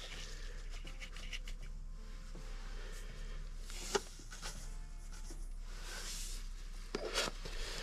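Hand pepper grinder twisted over the pot, a rapid run of small grinding clicks for about two seconds, then salt shaken out of a canister in a few short hissing pours, with a couple of light knocks.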